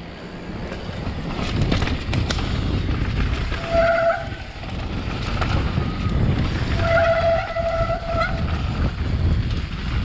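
Mountain bike rolling fast down a dirt trail, a steady rumble of tyres on dirt and wind on the camera microphone. Twice the disc brakes squeal with a steady high tone: briefly about four seconds in, and for over a second around seven to eight seconds.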